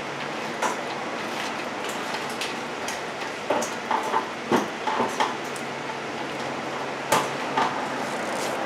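Scattered light metal clinks and taps as brake caliper bolts are started by hand and tools are handled, with a busier run of clicks in the middle and two sharper knocks near the end, over a steady low background hum.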